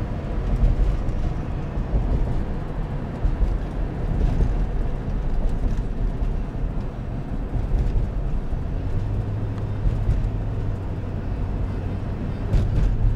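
Car driving, heard from inside the cabin: a steady low rumble of engine and road noise. About nine seconds in, a low steady drone joins it.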